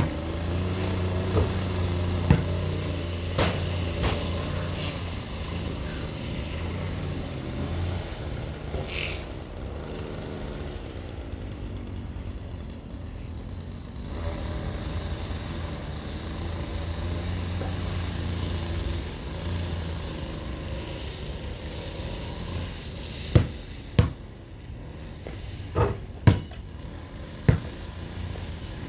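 A small petrol engine of lawn-care equipment runs steadily, dipping and swelling in level, and fades out after about twenty seconds. Near the end a basketball bounces several times on concrete.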